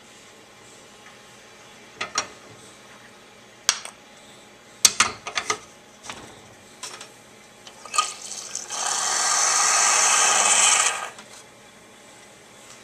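Several sharp clacks and knocks as the espresso machine's portafilter and shot glass are handled, then a steady rush of water from the group head for about two seconds that cuts off suddenly.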